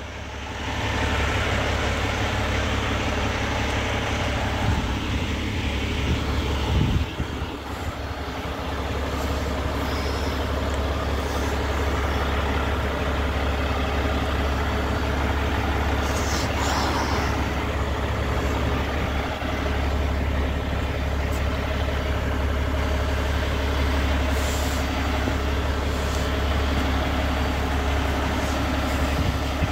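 Heavy road trucks, among them a wood-chip truck, passing by with a steady low diesel-engine and road rumble that builds about a second in, and a few short sharp sounds on top now and then.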